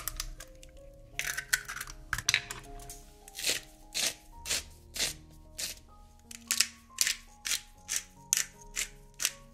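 Food being prepared in a glass bowl of chopped broccoli and raw egg over soft background music: a few irregular knocks, then short scraping, crunching strokes at a steady two a second.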